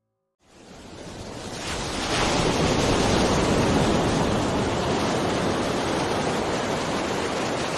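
Ocean surf washing onto a beach: a steady rush of waves that fades in after a brief silence and is at full level by about two seconds in.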